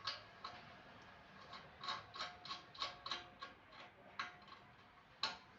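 Light mechanical clicking from a small mechanism, about three clicks a second for a couple of seconds, with a sharper knock at the start and another near the end.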